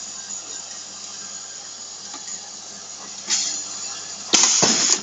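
Pneumatic eyelet press cycling while setting an eyelet in canvas: a short puff of air about three seconds in, then a loud burst of air hiss near the end that cuts off sharply, over a steady low hum.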